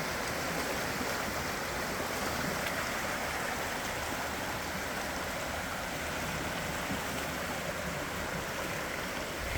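Creek water running steadily, a constant even rush of flowing water.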